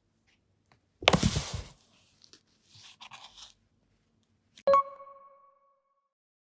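Cardboard box crunching and scraping as a cat bumps into it, followed by faint rustling. About four seconds in, a single bell-like ding rings out and fades over about a second.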